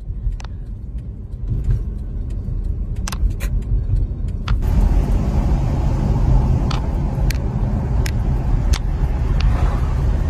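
Road and engine noise inside a moving car's cabin, a steady low rumble with no speech. About four and a half seconds in it grows louder and fuller, and a few faint clicks fall on top.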